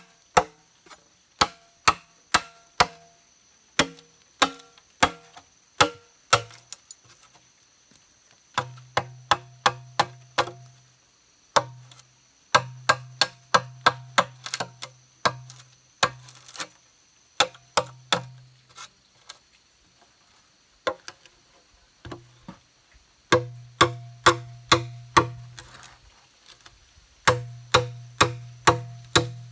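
A machete and a wooden mallet chopping a hole in the wall of a hollow green bamboo culm: quick runs of sharp knocks, about three or four a second, with the hollow bamboo ringing low under the strokes. The runs stop twice for a moment.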